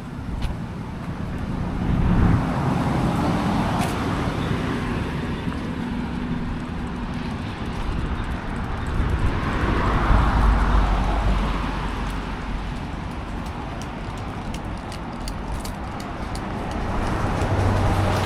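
Road traffic: vehicles passing, a steady rush that swells and fades three times.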